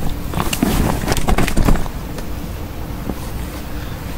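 Rustling and slapping of a common carp being laid down and handled on an unhooking mat, mostly in the first two seconds, over a steady low rumble of wind on the microphone.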